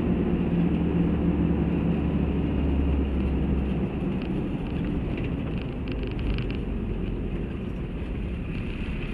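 Toyota Land Cruiser 70 on the move, heard from inside the cabin: steady engine and road noise with a deep low drone that drops away about four seconds in, as the vehicle eases off behind a truck.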